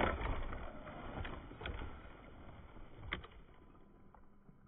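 A scale RC crawler truck pushing through deep snow: a rough churning of tyres and drivetrain, strongest at the start and fading away toward the end, with a couple of sharp clicks along the way.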